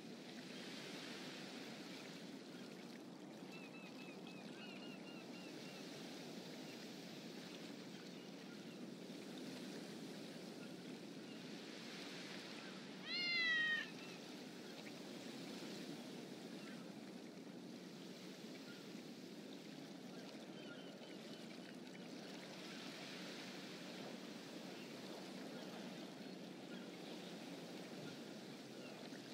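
A cat meowing once, about halfway through, a short call that falls in pitch at the end, over a steady background hiss. A few faint short chirps come a few seconds in.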